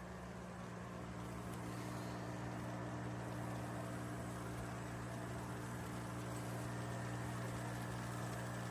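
Humidifier running: a steady low hum with an even hiss over it.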